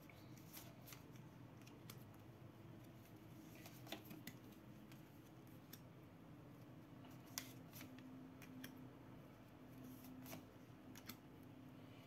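Faint, scattered sharp clicks and flicks of tarot cards being handled and laid down, over a low steady room hum.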